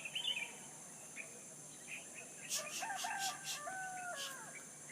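A rooster crowing once, starting about two and a half seconds in and lasting nearly two seconds, with small birds chirping briefly at the start. A steady high hiss runs underneath.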